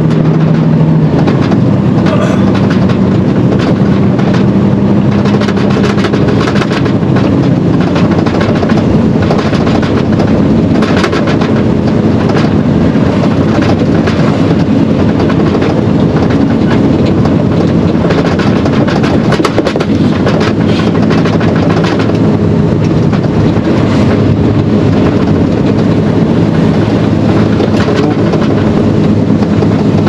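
Mercedes-Benz Actros SLT heavy-haulage tractor heard from inside the cab while driving slowly: the diesel engine runs steadily with road noise, its note rising about a second in, and short knocks and rattles come and go through the middle.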